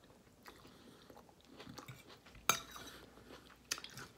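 A person chewing a mouthful of soft cooked onion, with faint mouth sounds and two sharp clicks, one about halfway through and one near the end.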